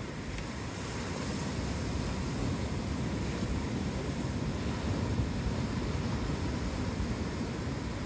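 Ocean surf breaking and washing up a sandy beach, a steady rush that swells over the first couple of seconds, with a low rumble of wind on the microphone.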